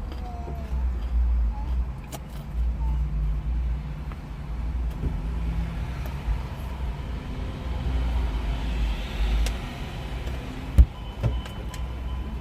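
Low rumble of a car's engine and road noise heard from inside the cabin while driving, with a single sharp knock near the end.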